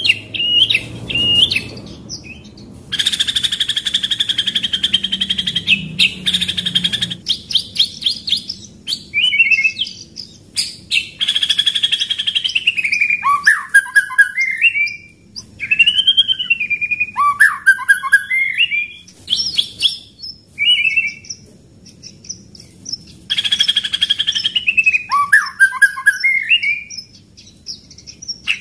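White-rumped shama (murai batu) singing a loud, varied song. Long rolling trills held for a few seconds alternate with runs of sharp, rapid 'shot' notes and looping whistled glides.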